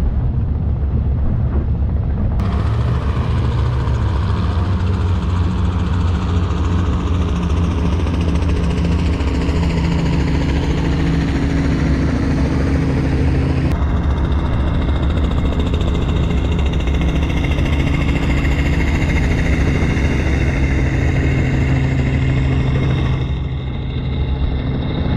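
Performance catamaran's engines running steadily under way: a low, even drone under a rushing hiss. The sound changes abruptly twice, about two seconds in and again about halfway, and stops suddenly at the end.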